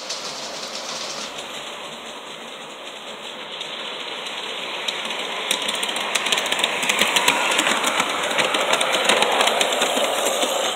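LGB G-scale model train running on brass track: a steady electric-motor whir with rapid clicking of wheels on the rails, growing louder as the train comes close and passes by.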